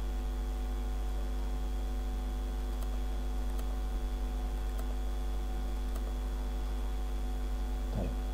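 Steady electrical mains hum from the recording setup, with a few faint, scattered computer mouse clicks as the eraser brush is worked.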